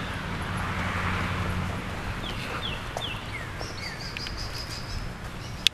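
Low steady hum of a pickup truck engine as it drives across the park lawn, fading after the first couple of seconds. A bird gives a few short falling chirps in the middle, followed by a thin high whistle.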